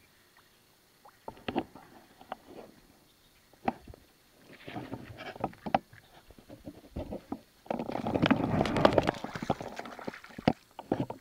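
Hooked bass thrashing and splashing at the surface beside the boat, a loud rush of splashing lasting about two seconds near the end. Before it come scattered small clicks and knocks.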